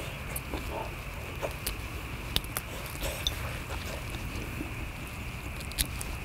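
Grilled king prawn shells being cracked and peeled by gloved hands, giving scattered small crackles and clicks, with some chewing.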